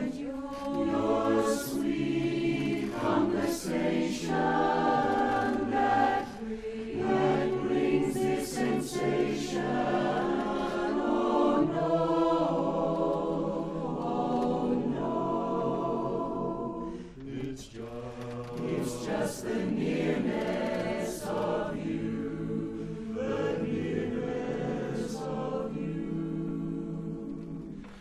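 Mixed-voice barbershop chorus singing a cappella in close four-part harmony, sustained chords with crisp consonants, briefly dropping in level about two-thirds of the way through.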